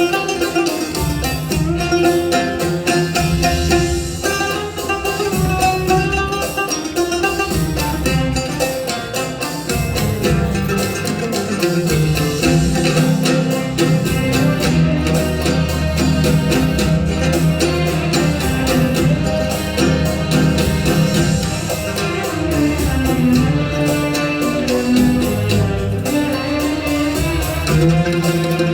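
Instrumental music played on the oud: plucked melodic lines over long held low notes.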